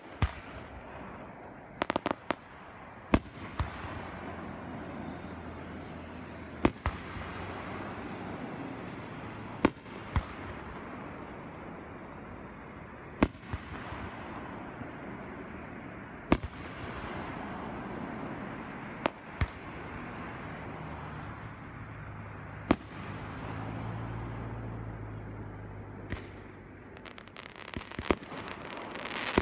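Fireworks display: aerial shells bursting with sharp bangs about every three seconds, some in quick pairs, over a constant background noise. A flurry of small crackling pops comes near the end.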